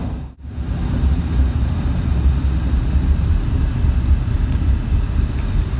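Steady low rumble of engine and tire noise heard from inside a vehicle's cabin while driving on a freeway. The sound drops out briefly about half a second in.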